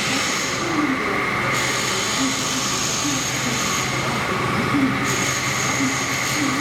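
Milling machine cutting a stamping die: a steady machining whine with several high tones, the highest of which drops out about a second and a half in and returns about five seconds in.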